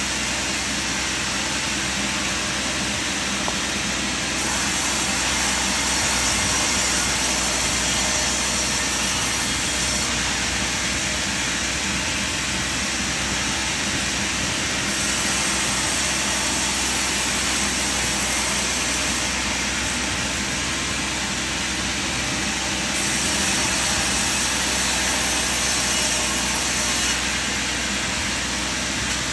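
Sawmill machinery running steadily, with an engine-like drone under a constant hiss. Three times it steps up abruptly into a louder, hissier stretch lasting four to six seconds, then drops back.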